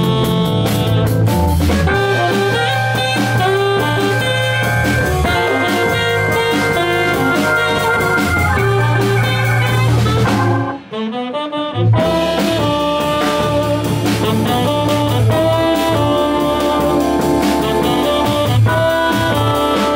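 A small jazz band playing live: drawbar organ with sustained bass notes and held chords, hollow-body electric guitar, drum kit and saxophone. Just past halfway the band stops for about a second, then comes back in together.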